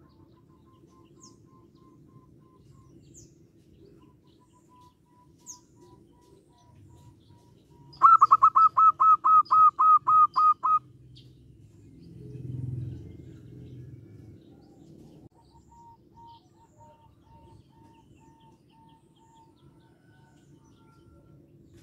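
Zebra dove calling: soft runs of quick repeated notes, then a loud run of about a dozen notes about eight seconds in. Faint high chirps of small birds come through, and a low rumble swells and fades around twelve seconds.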